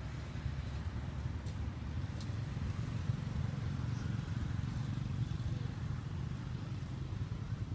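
Low, steady rumble of road traffic, with two faint clicks about a second and a half and two seconds in.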